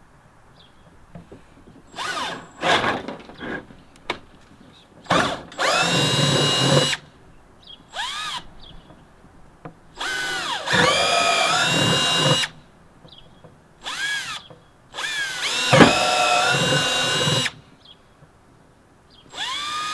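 Cordless drill boring holes through the bottom of a plastic food-grade bucket with a twist bit, run in repeated bursts. With each trigger pull the motor whine rises in pitch and then holds steady while the bit cuts, with short pauses between pulls; the longest run is about two seconds.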